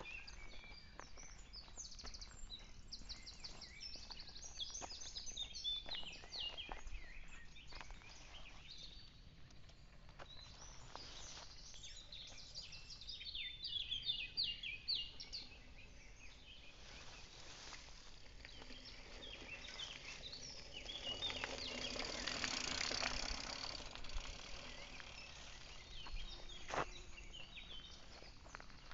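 Songbirds singing in woodland, with quick high chirps and trills, busiest in the first half. About two-thirds of the way through, a rushing hiss swells for a few seconds, and a single sharp click comes near the end.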